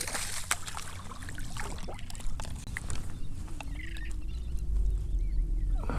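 Water sloshing with wind rumble on the microphone and a few small splashes and clicks; short chirping bird calls come in about four seconds in.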